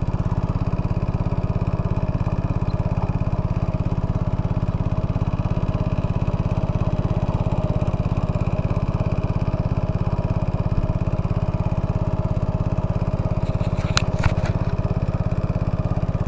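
Small boat's engine running steadily at a constant pace while the boat moves across open water. A few sharp clicks come near the end.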